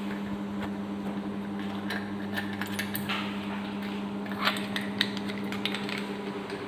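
Scattered light metallic clinks and clicks of a wrench and socket being worked on the number-one spark plug to remove it, over a steady low hum.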